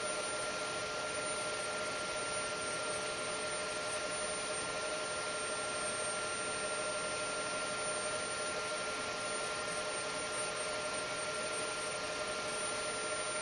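Mitsubishi RV-3SB six-axis industrial robot running as its arm moves down along the Z axis: a steady electrical whine of a few fixed tones over an even hiss.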